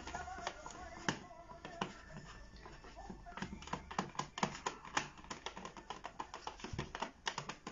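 A hand wiping the plastic surface of an LED fluorescent-marker drawing board to erase it, making a quick, irregular run of small clicks and taps that grows denser about halfway through.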